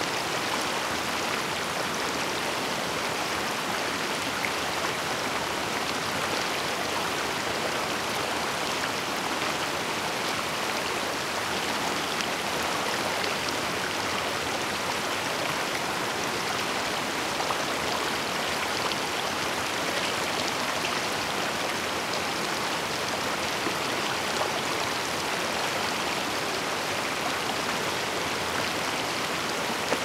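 Mountain stream water rushing and splashing as it cascades over rocks, a steady, unbroken rush.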